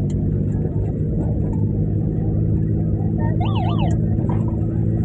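Car engine running steadily, with a short electronic police-style siren warble about three and a half seconds in, sweeping up and down twice.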